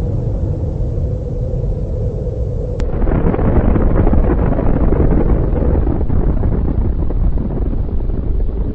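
Deep, continuous rumble of a huge explosion, swelling about three seconds in into a louder crackling blast that eases off after a few seconds.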